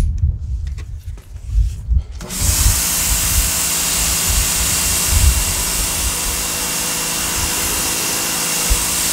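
Sun Joe SPX3000 electric pressure washer starting up about two seconds in and then running steadily: a motor-and-pump whine under the loud hiss of a wide 40-degree fan spray hitting concrete steps. Before it starts there is only a low rumble.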